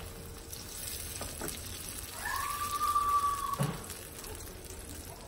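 Salmon steaks and red onions sizzling in a skillet as white wine is poured in to reduce. About two seconds in, a high steady tone rises in, holds for over a second, then cuts off with a light knock.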